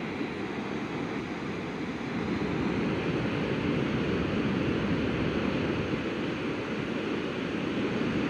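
Steady rushing noise, growing a little louder about two seconds in.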